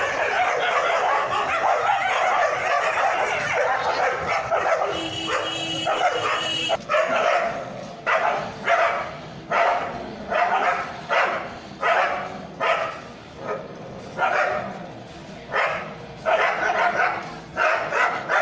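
Stray dogs fighting, growling and barking over one another in a continuous din. After about seven seconds this breaks into separate sharp barks and snarls, roughly three every two seconds.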